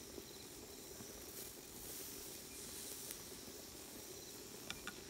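Skewered meat grilling over the open flame of a wood-burning camp stove, a faint steady sizzling hiss, with a few faint metal clicks near the end.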